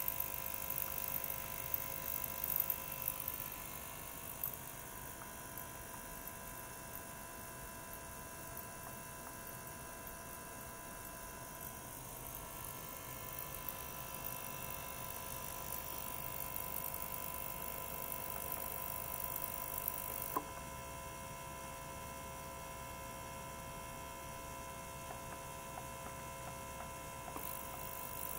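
A 42 kHz ultrasonic cleaner running with its water bath agitated: a steady electric hum made of several held tones over a high hiss. About twenty seconds in the hiss drops away at a click, and it comes back shortly before the end.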